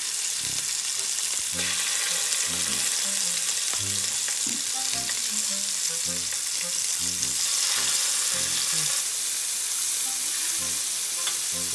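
Bite-size steak pieces sizzling steadily as they fry in an electric skillet, with tongs moving them around the pan near the end.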